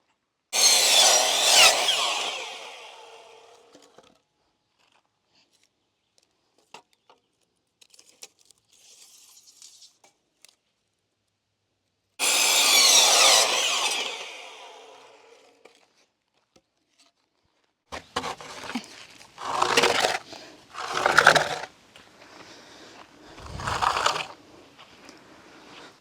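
Power saw cutting wood twice. Each cut starts abruptly with a high, wavering whine and winds down over a few seconds. Several shorter bursts of noise follow near the end.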